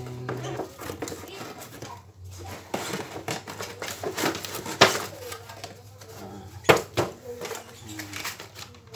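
Cardboard toy packaging being handled: a boxed remote-control car slid out of a cardboard carton and its display box pulled open, with scraping and rustling and a few sharp knocks, the loudest about five and seven seconds in.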